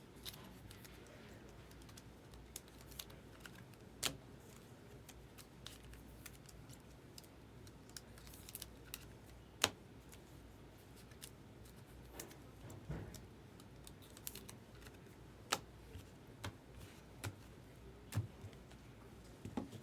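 Trading cards being handled and set down on a table: scattered light clicks and taps at irregular intervals over a faint low hum.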